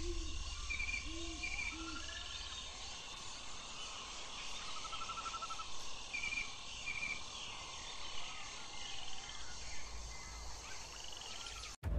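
Forest ambience: a steady high hiss of insects with short chirping calls, mostly in pairs, and a brief trill midway. It cuts off abruptly just before the end.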